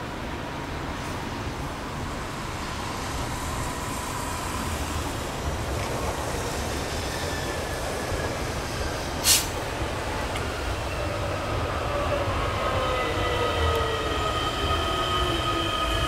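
Matterhorn Gotthard Bahn metre-gauge train approaching, its low rumble growing steadily louder. There is a single sharp click about nine seconds in, and from about eleven seconds on several high whining tones join in, one of them falling in pitch.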